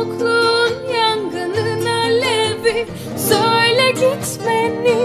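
Music: a woman singing a line whose pitch bends and wavers, over instrumental accompaniment.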